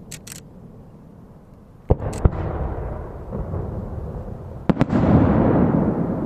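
Aerial firework shells bursting: a pair of sharp bangs about two seconds in, then two more near five seconds followed by a long rolling rumble.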